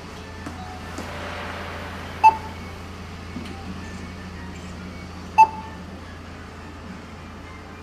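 Two short electronic beeps from a restaurant meal-ticket vending machine, about three seconds apart, over a low steady hum.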